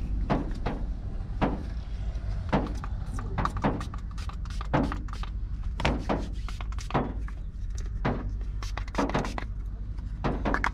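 Low steady hum in a car cabin, with irregular light clicks and knocks from a plastic water bottle being handled.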